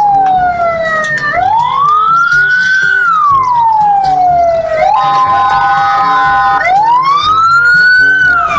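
Fire engine siren wailing, its pitch sweeping slowly up and down over a couple of seconds at a time. For about a second and a half in the middle it gives way to a steady, chord-like horn tone.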